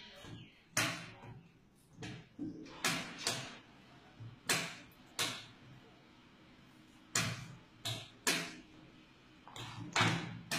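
Plastic chess pieces being set down sharply on the board, about a dozen knocks in quick succession, several in close pairs.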